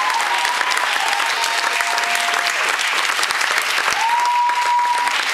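Audience clapping steadily after a dance performance, with a long high held tone, a cheer or whistle, about four seconds in.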